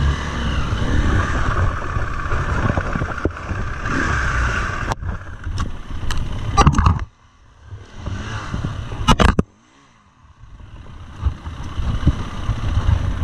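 KTM 350 EXC-F single-cylinder four-stroke trail bike engine running and revving in surges as it climbs a rocky, muddy lane, with sharp clattering knocks in the middle; the engine sound drops away suddenly twice near the middle before picking up again.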